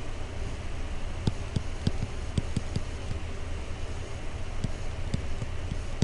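Stylus clicking and tapping on a tablet computer's screen while words are handwritten: irregular light clicks, several a second, over a steady low hum.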